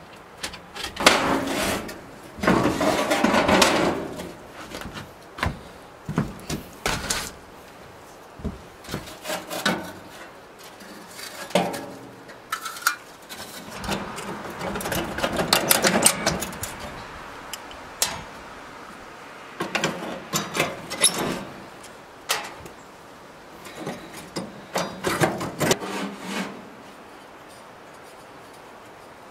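Parts of a worn gas grill being handled and taken apart for a rebuild: repeated scraping and rubbing, each a second or two long, with sharp knocks and clicks between them.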